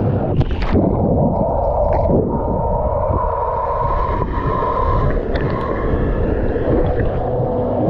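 Steady din of an indoor water park hall: rushing pool water and splashing, with a faint wavering tone that is strongest in the middle.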